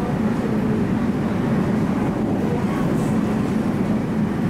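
Steady running noise of an MTR Tung Chung line K-train electric multiple unit at speed, heard from inside the carriage: an even rumble with a held low hum.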